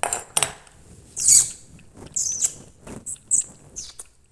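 A cat lapping milk from a small bowl: irregular wet smacks and slurps, one or two a second.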